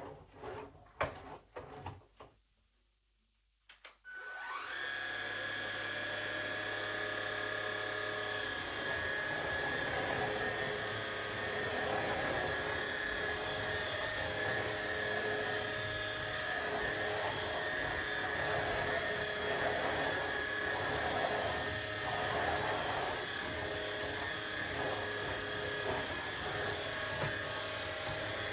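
A few clicks, then about four seconds in a cordless stick vacuum's motor spins up with a rising whine and runs steadily.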